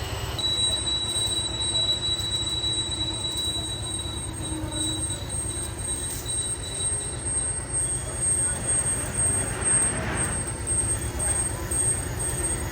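Heavy metal-cutting machine running on a steel pipe, with a steady low hum and a high-pitched squeal of the cutting tool on the steel that starts about half a second in and fades out about seven seconds in.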